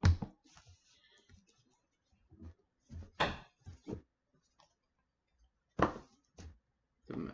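Cardboard packaging box handled: a few short scrapes and knocks as the lid is lifted off the box, then a sharp knock about six seconds in as the lid is set down on the desk.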